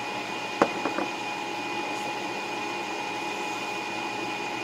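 A steady mechanical hum with a constant high whine in it; about half a second in, a sharp knock, followed by two lighter knocks.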